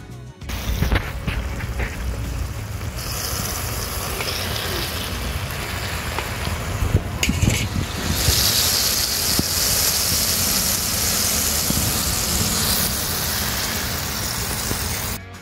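Soy-glazed Cornish hens and onions sizzling in sauce in a large wok over a fire, a steady hiss over a low rumble; the sizzle grows louder and brighter about eight seconds in.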